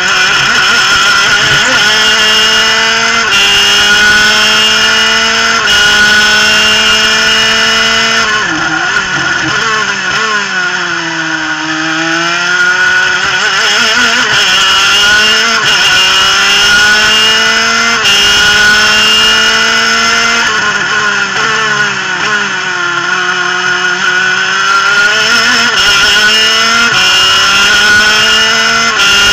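Superkart's twin-cylinder two-stroke engine at full racing effort, with wind rushing past. The pitch climbs in steps through the upshifts, falls away under braking and downshifts into a slow corner about a third of the way in, climbs again, and dips once more, less deeply, later on.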